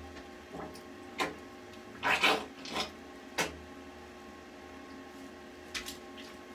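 A handful of short rubbing and knocking noises, the loudest cluster about two seconds in and a last pair near the end, over a faint steady hum.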